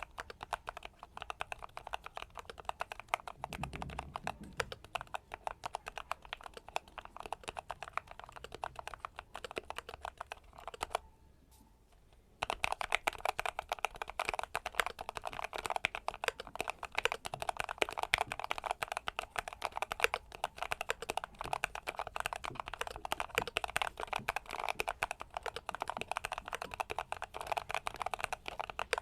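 Fast, continuous typing on a mechanical keyboard fitted with Akko ASA low-profile keycaps, many keystrokes a second, with a low thud about four seconds in. The typing stops for about a second and a half near the middle, then resumes louder.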